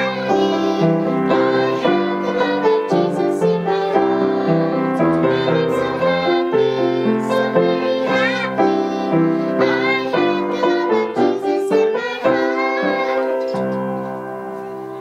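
Three young girls singing a song together with grand piano accompaniment. Near the end the singing stops and the piano's last chord dies away.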